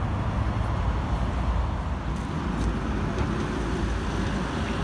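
Steady road traffic on a wide multi-lane city street: cars passing, a continuous low rumble of engines and tyres.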